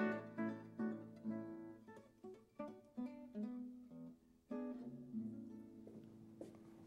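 Background music of acoustic guitar: plucked notes, quick and even at first, then sparser, with a last chord left to ring and die away.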